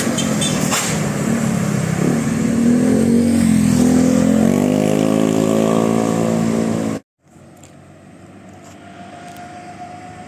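Big bus engine running loud and accelerating, its pitch rising about four to five seconds in. The sound cuts off abruptly about seven seconds in, giving way to a much quieter background with a faint steady hum.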